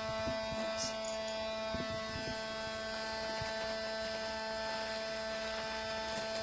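Dremel rotary tool running at a constant speed, a steady whine of several tones, with a few faint knocks.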